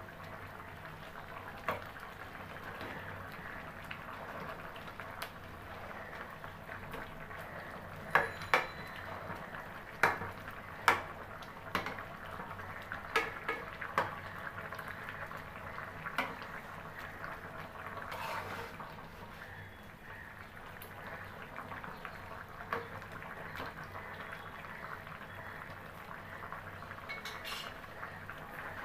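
Curry simmering steadily in a metal pan, while a metal spatula stirring it clinks and scrapes against the pan a dozen or so times, mostly in the middle.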